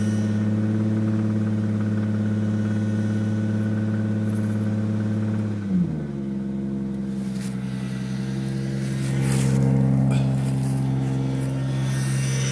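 Toyota 2JZ straight-six engine, with a spun rod bearing, running at a fast idle that drops to a lower, steady idle about six seconds in, then swells slightly near the ten-second mark.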